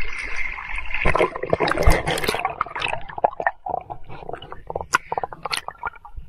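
Lake water sloshing and gurgling around a microphone that is dipping under the surface, with many irregular splashy clicks.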